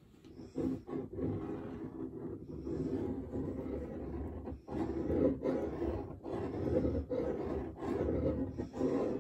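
A pen scribbling steadily on paper over a board, with continuous scratching strokes and a couple of brief pauses.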